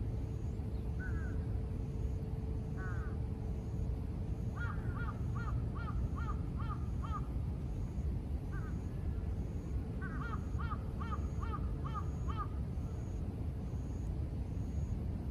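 A crow cawing: a couple of single caws, then two quick runs of about eight caws each, about three a second. Under it, a steady low rumble of distant city traffic.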